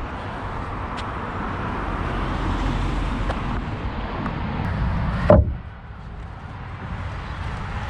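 Steady outdoor street rumble, then a single loud bang a little over five seconds in, after which the background is quieter.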